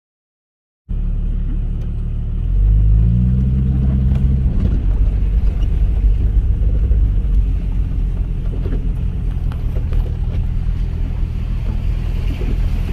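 Jeep engine and tyre rumble while driving on a rough road, starting abruptly after a moment of silence. The engine pitch rises about two seconds in, then holds steady under a constant rumble.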